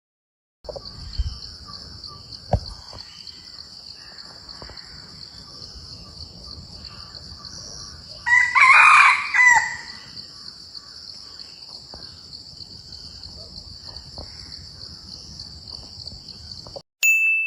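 A rooster crows once, loud, about halfway through, over a steady high-pitched hiss and a few faint knocks. A short ding chime sounds near the end.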